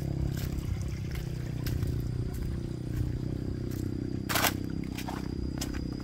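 Footsteps on a path about twice a second, with one louder scrape about four seconds in, over a steady low rumble. A thin, steady high tone runs underneath.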